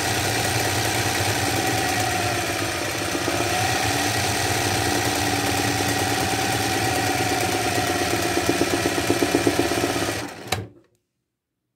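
Sewing machine running at speed for freehand machine embroidery, stitching a leaf fill while the fabric is moved by hand. The motor slows briefly about three seconds in, picks up again, and stops abruptly about ten and a half seconds in.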